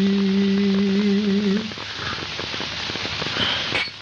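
A man's unaccompanied Kurdish dengbêj singing voice holding one long, steady note, which breaks off about a second and a half in. After it, only the crackling hiss of an old recording.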